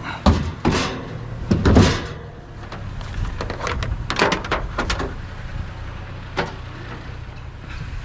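Knocks and clatter of a large speaker cabinet being handled and pulled loose from a trash pile: a cluster in the first two seconds and another about four to five seconds in. A vehicle engine idles steadily underneath.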